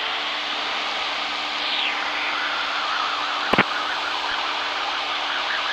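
Cessna 172 cabin noise heard through the intercom audio feed: a steady engine and airflow hiss at cruise power, with a few low steady hum tones. A single sharp click comes about three and a half seconds in.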